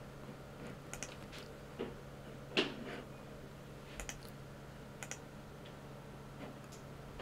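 Scattered clicks of a computer mouse, about a dozen, some in quick pairs, over a faint steady low hum.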